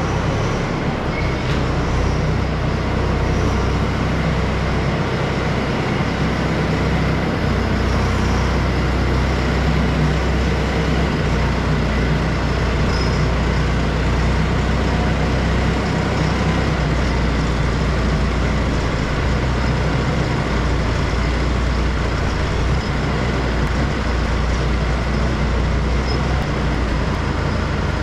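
Fendt tractor's diesel engine running steadily as it reverses with a manure spreader in tow.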